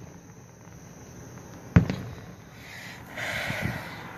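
A distant aerial firework shell bursts with a single sharp boom about two seconds in, which dies away quickly. Near the end comes about a second of hissing noise.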